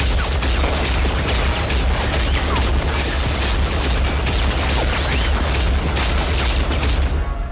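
Loud, dense action-film soundtrack: a continuous barrage of sharp hits and bangs, like rapid gunfire, over a deep bass rumble, cutting off suddenly near the end.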